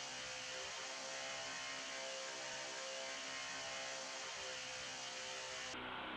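A steady hum made of several level tones, with hiss over it. The higher hiss cuts off suddenly near the end.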